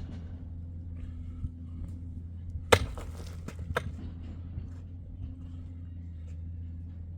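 A steady low motor hum, with two sharp knocks about a second apart near the middle, the first much louder.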